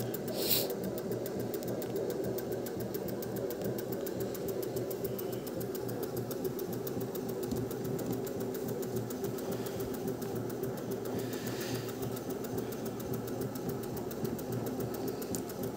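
Honda generator's magnet-rotor alternator spinning steadily on a 12 V DC supply, a constant machine hum with several steady tones.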